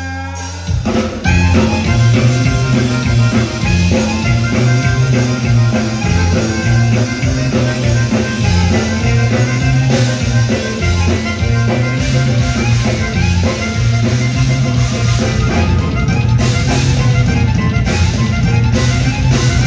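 Live conjunto band playing without vocals: accordion over electric bass, electric guitar and drum kit. A held chord gives way about a second in to the full band with a steady driving bass line.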